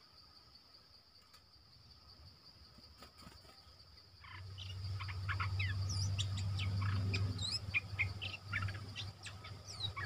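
A forest insect buzzes at one steady high pitch. About four seconds in, bulbuls break into rapid chattering calls, many short quick whistled notes, over a low hum.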